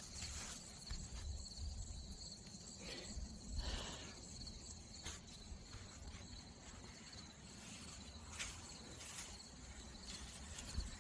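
Crickets chirring steadily and faintly, with a few soft scrapes and knocks now and then.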